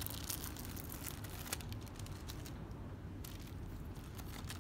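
Thin clear plastic film crinkling and crackling irregularly as it is peeled off the sticky silicone adhesive of a stick-on bra cup.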